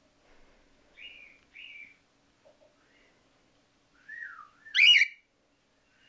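Cockatiel whistling: two short notes about a second in, then a dipping whistle and a loud, sharp upswept call just before the end.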